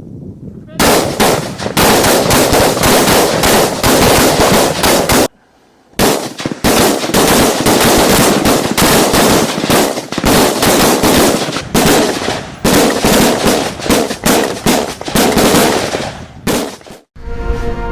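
Rapid rifle fire from several guns at once, a dense, continuous run of shots with a short break about a third of the way in.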